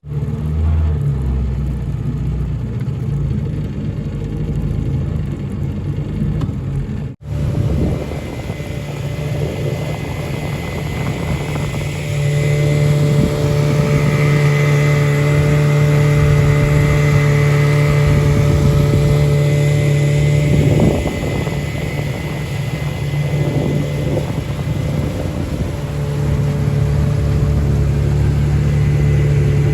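Boat motor running steadily as the boat travels to a new spot, with a steady hum; it cuts out for an instant about seven seconds in and runs louder from about twelve seconds in.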